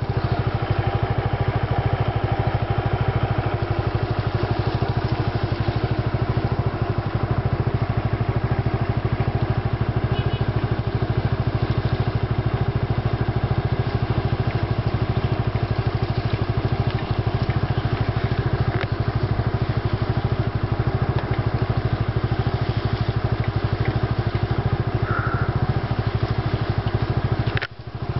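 A small engine idling steadily, with an even, rapid pulse that drops out briefly near the end.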